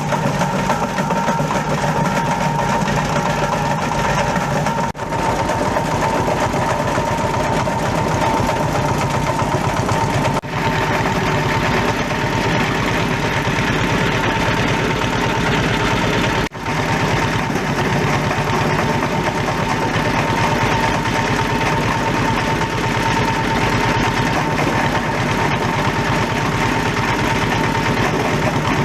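Waste-fabric shredding machine running steadily with a fast, even mechanical chatter and a steady hum. The sound drops out for a split second three times.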